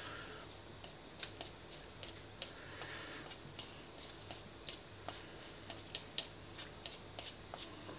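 Faint sounds of someone eating spaghetti bolognese: scattered, irregular soft clicks and ticks.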